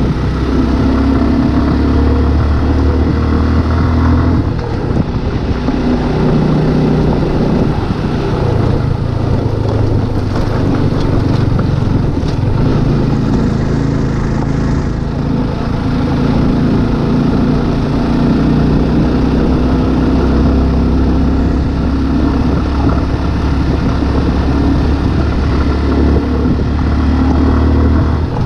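Motorcycle engine running while riding. Its note drops about four seconds in and picks up again about halfway through.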